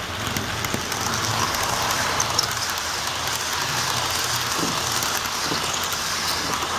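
HO scale model passenger train rolling past close by: a steady running rattle on the track, with many fine clicks and a low hum underneath.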